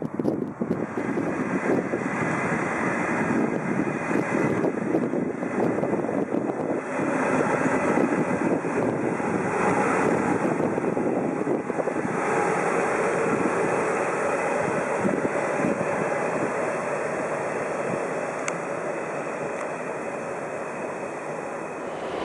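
Green Cargo Rc4 thyristor-controlled electric locomotive hauling freight wagons past, a steady running noise that is loudest around eight to twelve seconds in and then slowly fades.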